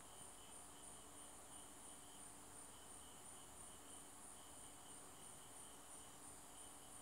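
Near silence with insects chirping faintly in the background: a steady high trill that pulses a few times a second.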